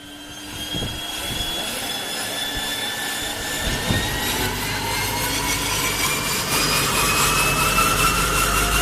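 Cessna 208 Caravan's PT6A turboprop engine running with a whine that rises slowly and steadily in pitch as the sound grows louder.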